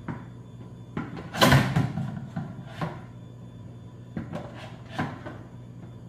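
Knocks and crackles of a clear plastic jar as a heated awl is pressed through its wall to melt holes, the loudest a clatter about a second and a half in, over a low steady hum.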